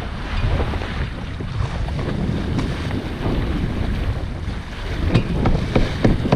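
Wind buffeting the microphone over the rush and wash of water along the hull of a sailboat under sail, with a few sharp ticks near the end.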